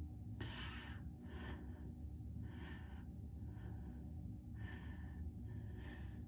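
A person breathing heavily, about six separate breaths, over a steady low hum.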